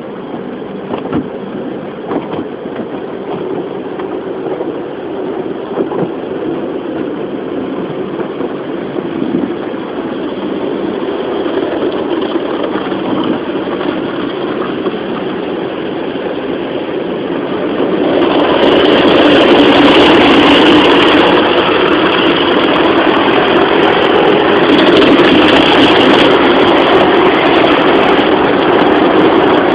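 Automatic car wash heard from inside the car: rotating brushes and water spray working over the body and glass, with the wash machinery running. It grows louder and harsher about eighteen seconds in.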